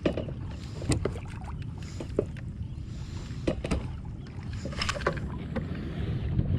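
Steady wind and water rumble around a fishing kayak, with a few short knocks and taps scattered through it.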